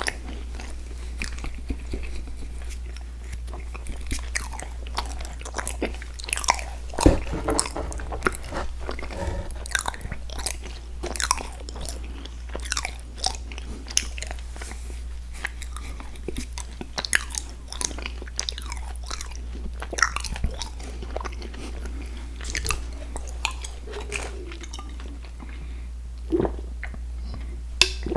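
Close-miked eating of chewy sweets: biting and chewing with many quick, wet, sticky mouth clicks, over a steady low hum.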